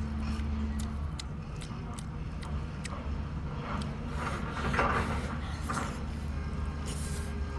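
Eating sounds from a boiled lobster head: scattered small clicks of shell and slurping swells, the strongest about four to five seconds in, as the roe and tomalley are sucked out. A steady low hum runs underneath.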